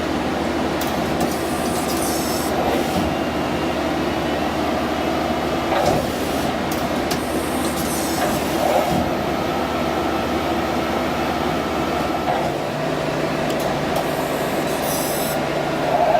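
Mighty Viper VT-30GL CNC lathe running under power: a steady machine hum made of several tones. Its lowest tone steps up in pitch about three-quarters of the way through. Short high hissing bursts come three times.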